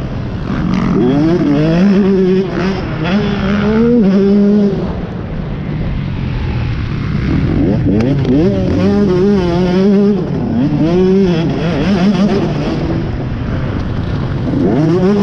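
Motocross bike engine heard from onboard, revving up and dropping back again and again as the rider opens the throttle, shifts and shuts off for corners and ruts.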